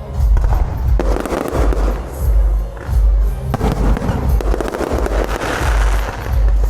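Fireworks and firecrackers going off, with sharp bangs and a dense crackling burst near the end, over loud music with a heavy bass beat.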